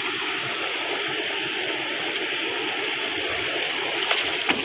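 Steady, even hiss of heavy rain falling, with a few light knocks near the end.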